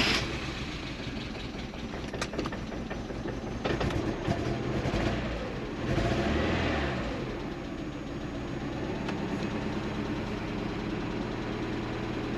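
1991 Mazda Miata's 1.6-litre four-cylinder engine running just after starting from long storage, rising in revs twice and then settling to a steady idle. The owner suspects a couple of vacuum leaks.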